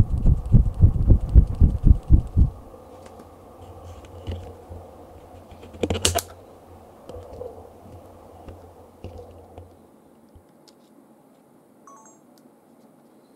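Low rhythmic throbbing noise, about four pulses a second, that stops abruptly about two and a half seconds in. Then the quiet clicks and rustles of a camcorder being handled, with one sharp click about six seconds in.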